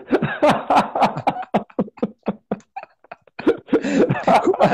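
Men laughing in rapid bursts of breathy 'ha-ha' pulses, easing off in the middle and rising again near the end, heard through a video-call connection.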